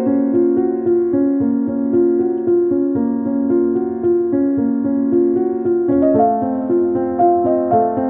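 Background piano music: a slow melody of held notes that moves to a new chord about six seconds in.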